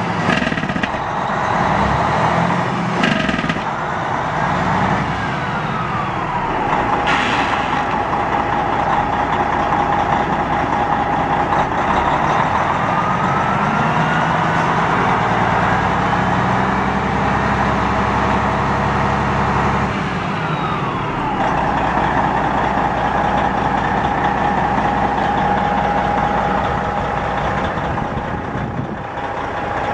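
Detroit Series 60 12.7-litre diesel of a Peterbilt 377 semi running, revved up twice: briefly about three seconds in, then held from about twelve seconds in and dropping back to idle near twenty-one seconds. A whine rises and falls with the revs, and a few sharp clicks sound in the first seven seconds.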